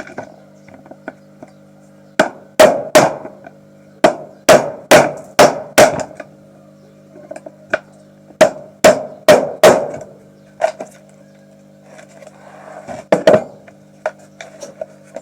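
Hammer blows in quick groups, about two to three a second: three, then five, then four, with a few lighter taps later, over a steady low hum.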